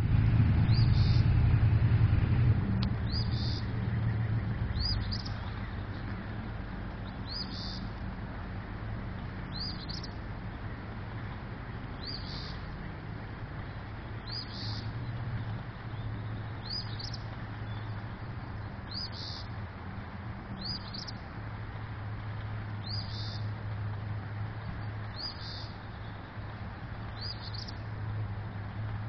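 A bird repeats a short, high chirp about every two seconds over a steady low hum and rushing noise, which is louder for the first couple of seconds.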